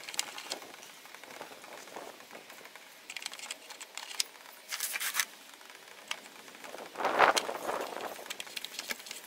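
Scattered light clicks and rustles of a gloved hand working a fitting at a car engine's oil drain, with a louder burst of handling noise about seven seconds in.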